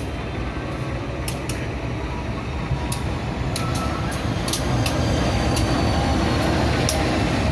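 Diesel-electric locomotive approaching and passing close by, its engine rumble growing louder, with scattered sharp clicks from the wheels on the track.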